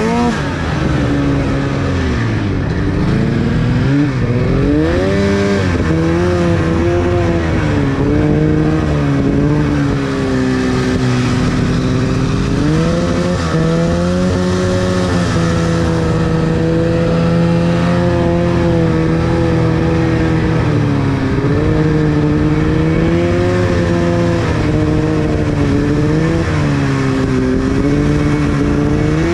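Arctic Cat two-stroke snowmobile engine running under the rider, its pitch rising and falling again and again with the throttle as the sled works along a trail.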